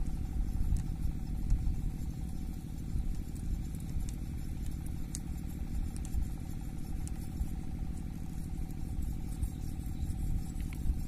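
A small engine running steadily, a continuous low hum with a steady higher tone above it.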